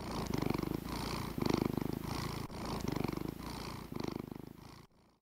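Domestic cat purring, rising and falling with each breath in and out, then cutting off near the end.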